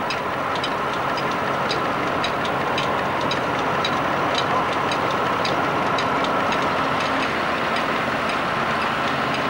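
A vintage tractor and threshing mill running at a steady speed while threshing oats, giving a constant mechanical din with a light regular clicking about twice a second.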